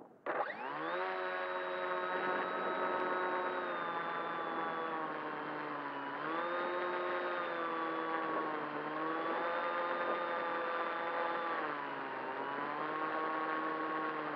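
Volantex Ranger RC plane's brushless electric motor and propeller spinning up suddenly into a loud, steady whine. Its pitch rises and falls a few times with the throttle.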